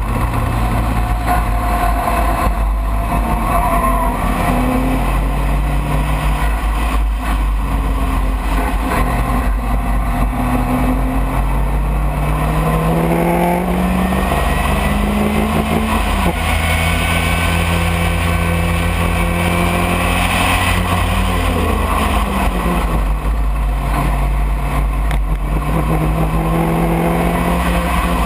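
Racing car engine heard from the open cockpit at race pace, its pitch climbing through the revs and dropping sharply at gear changes, then falling away under braking around two-thirds of the way through before climbing again near the end. A steady low rumble of wind and road noise runs underneath.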